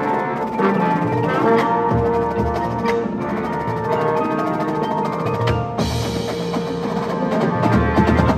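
Drum and bugle corps playing live: held chords under snare and bass drum strikes and drum rolls, swelling toward the end.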